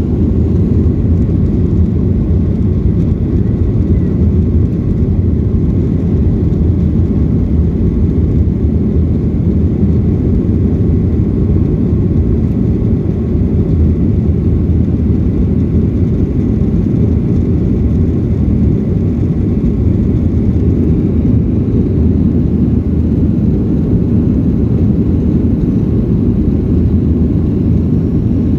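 Steady cabin noise of a Boeing 737-9 (737 MAX 9) climbing after takeoff: a low, even rumble of its CFM LEAP-1B jet engines and rushing air, heard from inside the cabin at a window over the wing.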